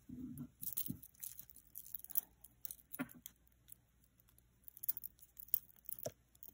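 Metal chain necklace with a flat cut-metal pendant being handled: faint scattered clinks of chain links and rustling of fingers on metal, with a couple of sharper clicks about halfway and near the end.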